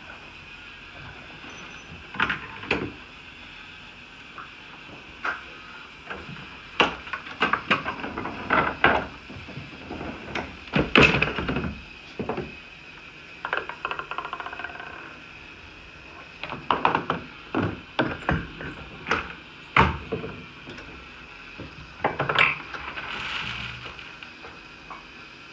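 Homemade Rube Goldberg machine running its chain reaction: a string of separate knocks, clicks and clatters as balls, plastic cups and wooden pieces fall and strike, with short rattling stretches between them. Near the end a longer rattle as dry cereal pours from its box into a plastic bowl.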